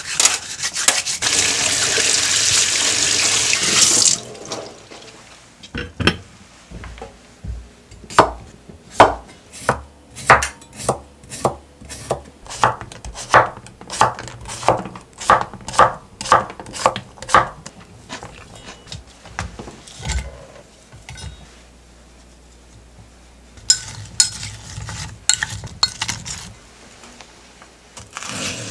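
Water running into a stainless-steel sink as cucumbers are rinsed, cutting off about four seconds in. Then a kitchen knife slices a cucumber into rounds on a cutting board, with steady chops about twice a second, followed by a few scattered knocks of the knife.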